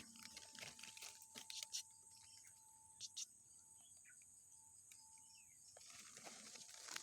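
Faint sounds of spotted dove chicks: scattered soft clicks and a few brief, high peeps, with near silence between them.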